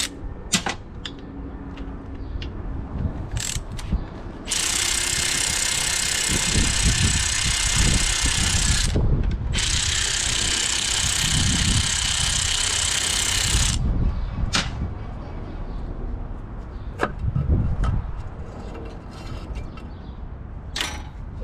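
Power ratchet running on the timing chain cover bolts of an LS V8 engine, backing them out. Two long runs of several seconds each, with short bursts and clicks of the tool and metal parts between them.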